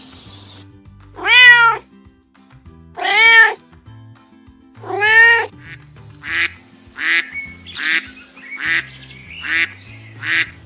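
Domestic cat meowing: three long, arching meows, then six shorter, quicker meows, over soft background music.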